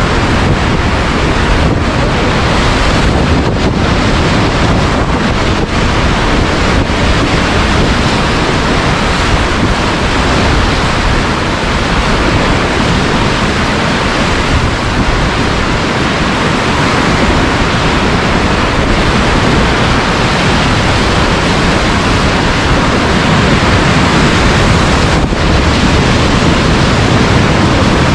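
Whitewater rapids rushing loudly and steadily around a catamaran raft's pontoons, with wind buffeting the microphone.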